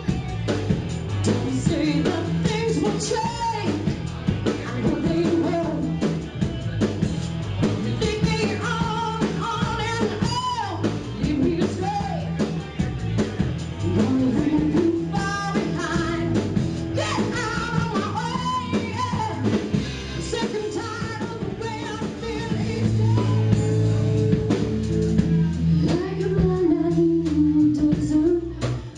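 Live rock band playing: a woman singing into a microphone over electric guitars and a drum kit, her voice carried through a small club P.A.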